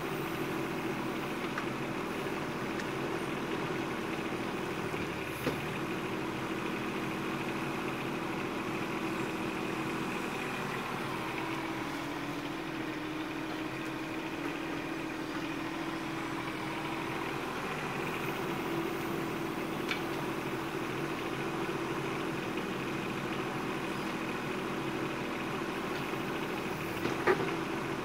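Bobcat 418 mini excavator's small diesel engine running steadily while it digs with the boom and bucket, its pitch shifting slightly under hydraulic load. A sharp knock sounds about five seconds in and a louder one near the end.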